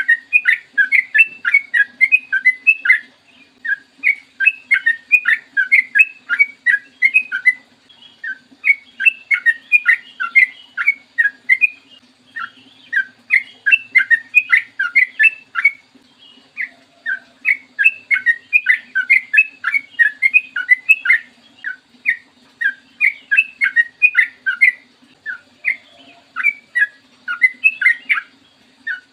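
Yellow-vented bulbul (trucukan) singing long rapid runs of bubbly, chattering notes in phrases of a few seconds each, separated by short pauses. A faint steady low hum lies underneath.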